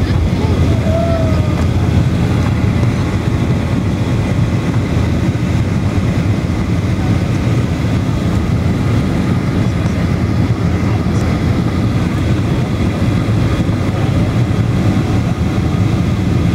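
Jet airliner cabin noise during takeoff and initial climb: the engines at takeoff thrust and the air rushing past make a steady, loud, low rumble, heard from inside the cabin.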